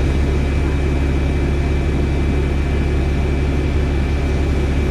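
VDL DB300 double-decker bus with Wright Gemini 2 body, its engine and driveline running steadily. A loud low drone with a thin, steady high whirring whine on top, and no change in pitch.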